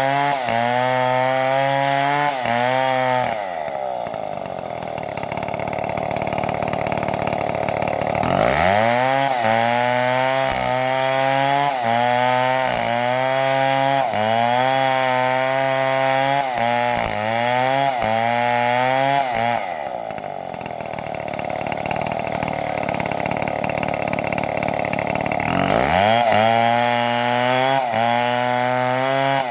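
Large two-stroke chainsaw, a Stihl MS720, cutting into wood at full throttle, its pitch dipping and recovering under load. It eases off twice for several seconds and revs back up into the cut.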